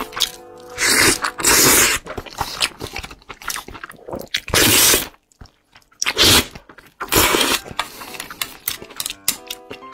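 Close-up eating sounds: sauced oysters sucked off the half shell and chewed, in about five loud slurps with wet smacks and clicks between.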